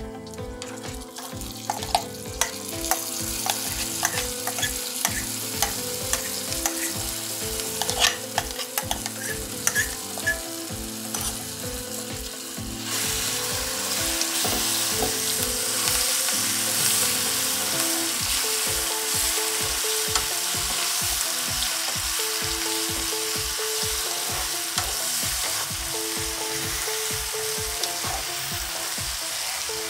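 Red chilli paste sizzling as it fries in hot oil with a tempering of dals and curry leaves in a nonstick pan, while a spoon stirs and scrapes it with clicks and knocks. About 13 seconds in, the sizzle grows louder and steadier.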